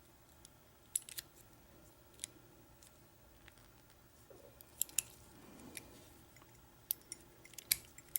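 Small sharp metal clicks and taps at irregular intervals from a pin-tumbler deadbolt cylinder as a key blank is drawn out while a shim is pressed in behind it, working the shim between the driver pins and the plug.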